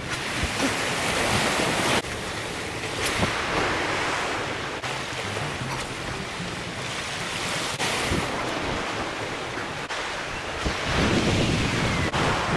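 Ocean surf washing over a rocky reef shelf, swelling and easing every few seconds, with wind rumbling on the microphone.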